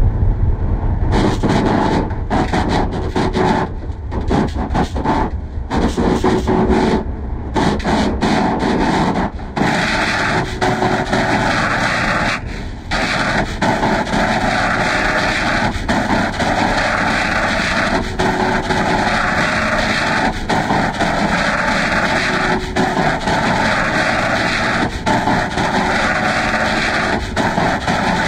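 Loud, harsh, heavily distorted audio with no clear words or tune. It is choppy for the first ten seconds, then swells in long blocks about every two seconds.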